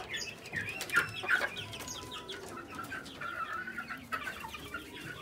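Young gamefowl chickens clucking and chirping in many short calls, one sharper call about a second in.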